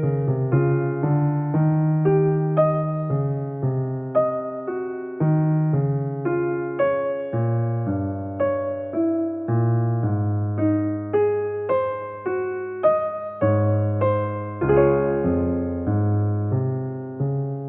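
Piano music: a slow melody of single notes and chords struck about twice a second, with a final chord left ringing near the end. No waterfall sound is heard.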